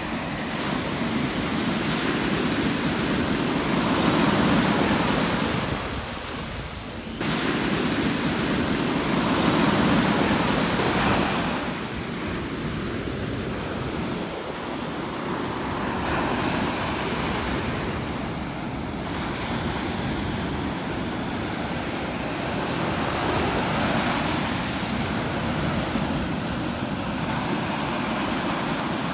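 Small waves breaking and washing up a sandy shore: a steady hiss of surf that swells and eases every several seconds.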